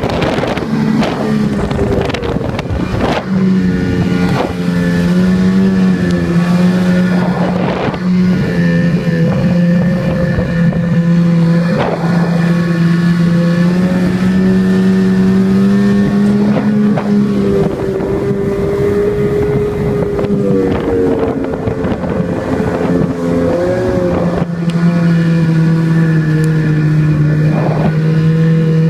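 Snowmobile engine running steadily under load on the climb, its pitch wavering a little, with scattered knocks and jolts.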